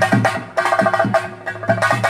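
Chenda drums beaten in a fast, driving rhythm, with a steady ringing tone held over the strokes.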